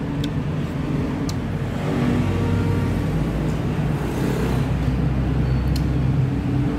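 Low rumble of a passing motor vehicle, swelling about two seconds in and fading near the end.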